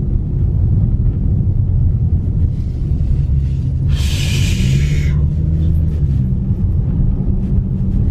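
Steady low rumble of road and engine noise inside a moving car, with a brief hiss about four seconds in that lasts about a second.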